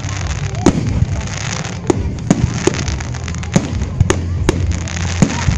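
Aerial firework shells bursting overhead: about eight sharp bangs at irregular intervals over a steady low rumble.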